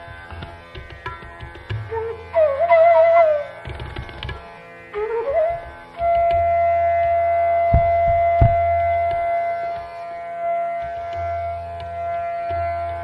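Indian classical-style background music with tabla and a droning string accompaniment. A melody line slides between notes, then holds one long note from about six seconds in.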